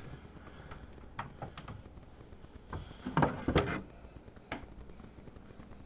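A few light clicks and knocks from objects being handled, with a louder clatter a little past halfway through.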